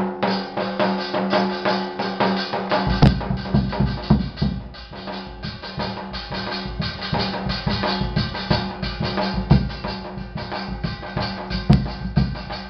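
Rajasthani folk music for the Chari dance. A dhol drum is beaten and a brass thali plate rings under rapid strikes, over a steady harmonium drone. The dhol's deep strokes come in strongly about three seconds in.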